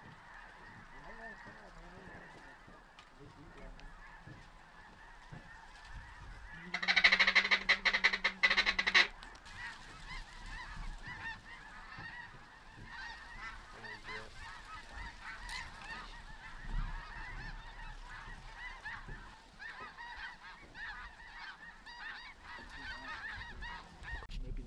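A large flock of geese honking continuously, a dense chatter of many overlapping calls. About seven seconds in, one much louder, close pulsing call lasts about two seconds.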